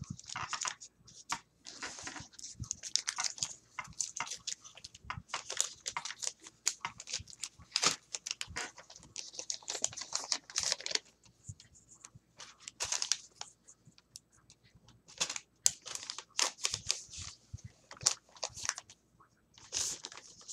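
Paper and plastic packaging being handled and unwrapped, rustling and crinkling in irregular bursts with short pauses.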